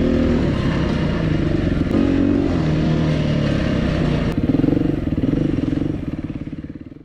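Dual-sport motorcycle engine running while riding a dirt singletrack trail, its pitch rising and falling as the throttle is worked. The sound fades out near the end.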